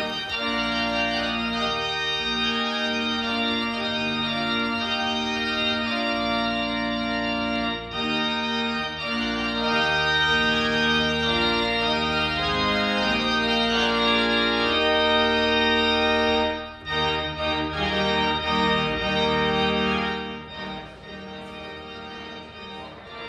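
Church organ playing slow, held chords that change every second or so, growing softer near the end.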